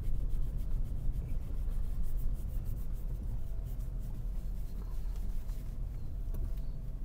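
A car driving slowly over a bumpy dirt track, heard from inside: a steady low rumble with many small ticks and rattles.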